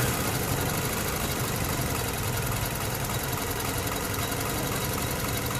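2006 Lexus ES 330's 3.3-litre V6 idling steadily, settling back to idle just after the throttle is released.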